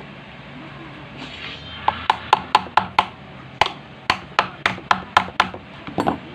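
A run of about fourteen sharp knocks, a few a second, with a short break in the middle, as a part of a washing machine is struck during a repair. A brief rustle comes just before the first knock.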